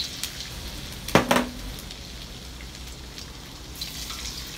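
Hot oil sizzling steadily in a wok as ginger goes in to fry, with a sharp knock about a second in and a few lighter clicks.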